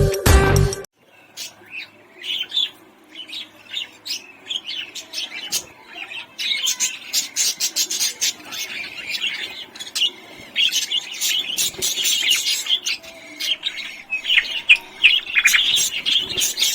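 Budgerigars chirping in many quick short calls, with the tail of a music track cutting off under a second in.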